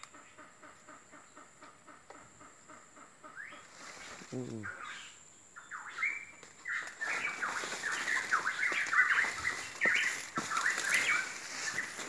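Birds calling in quick runs of short chirping notes, which start about five seconds in and get louder toward the end. A faint, rapid, even ticking comes before them.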